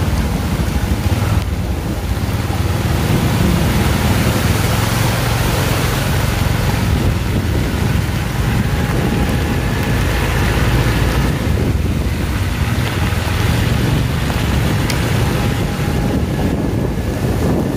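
Heavy rain and strong wind, with wind rumbling on the microphone over the steady low drone of a vehicle driving through the downpour.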